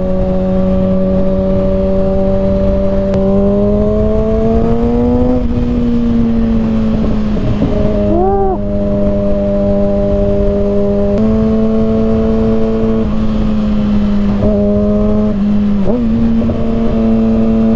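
Kawasaki ZX-6R's inline-four engine running through a slip-on exhaust with its baffle removed, riding at steady moderate revs in traffic. The pitch climbs gently a few seconds in, eases back, then steps up twice later on as the revs change.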